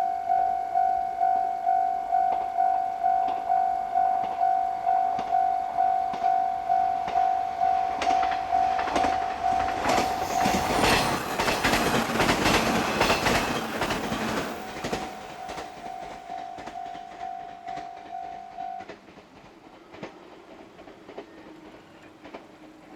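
Japanese railway level-crossing alarm repeating its electronic bell tone about twice a second while a train passes, its wheels clacking over the rail joints. The train noise builds and is loudest about halfway through, then fades; the alarm stops a few seconds after the train has gone.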